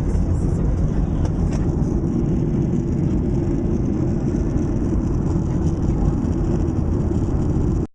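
Airliner cabin noise: a steady low rumble of the engines and airflow, heard from inside the passenger cabin.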